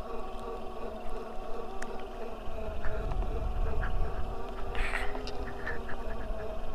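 Electric mini dirt bike's 500W 36V motor whining steadily with a buzzing hum as it rides along, over a low rumble of wind on the helmet microphone that swells around the middle.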